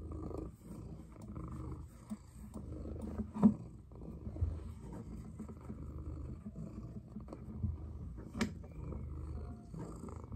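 Domestic cat purring while being stroked, a low continuous rumble rising and falling with each breath. Two sharp taps cut in, about three and a half and eight and a half seconds in, the first the loudest sound.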